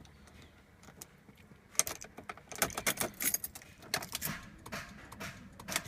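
A BMW failing to start: a run of sharp, irregular clicks begins about two seconds in, instead of the engine cranking. It is the clicking typical of a dead battery, which the owner puts down to a failing alternator.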